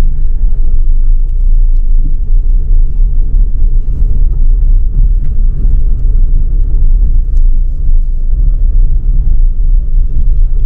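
Car driving along a rough dirt track, heard from inside: a loud, steady low rumble of engine and tyres, with scattered small rattles and ticks.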